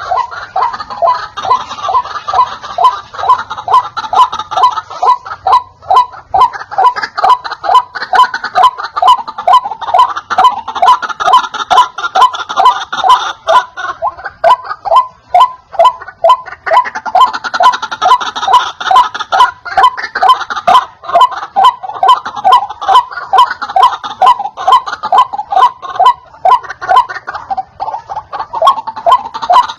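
White-breasted waterhen calling: a loud, unbroken series of repeated 'wak-wak' notes, about two to three a second, a call used as a lure to draw in wild waterhens.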